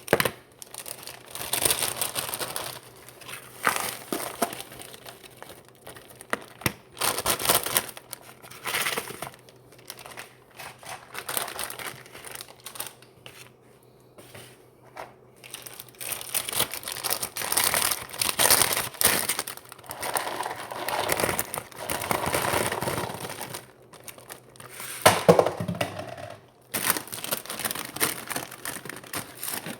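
Bag of crunchy Cheetos crinkling and crunching in irregular spells as it is handled.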